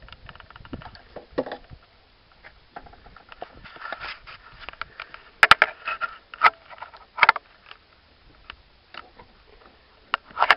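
Scattered clicks, scrapes and knocks of hands handling the distributor on a Mazda Bongo's engine, its cap just removed, with a run of sharper clicks about halfway through.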